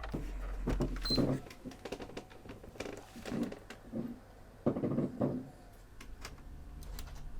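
Scattered small clicks and taps of hands working on the opened PS3 Super Slim's disc drive, fiddling with a lifted disc-detect switch that has kept the disc from spinning, over a low steady hum.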